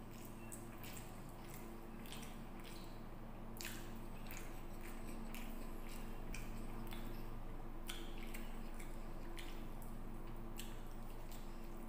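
Wet, squishing mouth and hand sounds of eating rice and curry by hand: fingers mixing and squeezing the rice on the plate, chewing and lip smacks, as scattered short clicks over a steady low hum.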